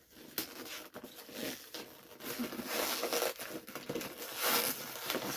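Gift wrapping being unwrapped by hand: paper rustling, crinkling and tearing, with short scrapes and taps.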